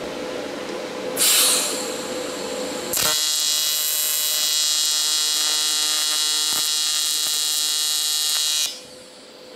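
AC TIG welding arc on cast aluminum: a short hiss about a second in, then a steady, evenly pitched buzz that holds for about six seconds while filler rod is fed into the puddle, cutting off sharply near the end.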